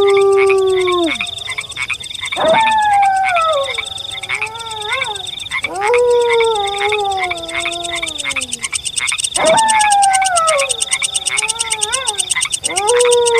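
Wolf howls, four of them about three and a half seconds apart, each rising quickly and then sliding slowly down in pitch, over a steady, high, fast-pulsing night chorus.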